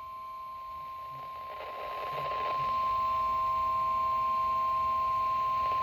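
NOAA Weather Radio 1050 Hz warning alarm tone, one steady unbroken tone that grows louder about two seconds in. It comes through a radio's speaker in a small room and signals that a warning broadcast is about to follow.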